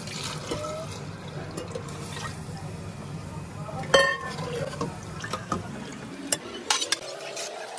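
Water poured from a steel container into a pressure cooker of soaked dal, then a steel ladle stirring and knocking against the cooker, with one sharp ringing clang about four seconds in and a few lighter knocks near the end. A low steady hum runs underneath and stops near the end.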